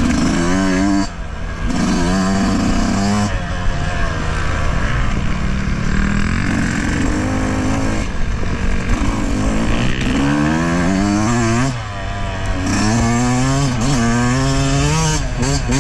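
A 2020 Yamaha YZ125's single-cylinder two-stroke engine, ridden on a dirt trail, revving up and down as the rider works the throttle and gears, its pitch climbing and falling again and again. The throttle is briefly shut off about a second in and again about three quarters of the way through.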